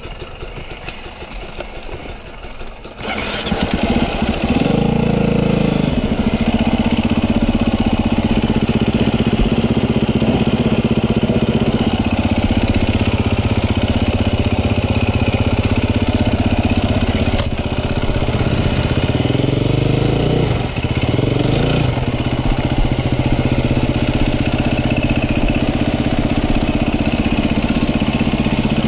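KTM enduro motorcycle engine starting about three seconds in, then running steadily at a low idle, with short blips of the throttle soon after it starts and again about two-thirds of the way through.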